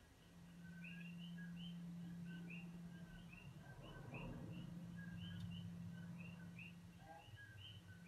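Frosted glass singing bowl tuned to 172 Hz sounding a quiet, steady low hum that dips right at the start and swells back within a second. A brief rush of noise comes about four seconds in. A repeated two-note chirping call keeps going in the background.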